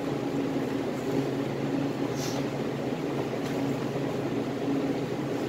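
Steady hum of a fan running in the background, with a brief higher hiss about two seconds in.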